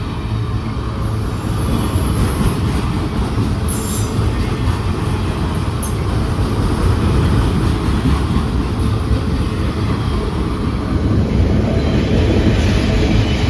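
Freight train cars rolling past on the rails: a steady rumble and clatter of steel wheels, with brief high-pitched wheel squeals several times.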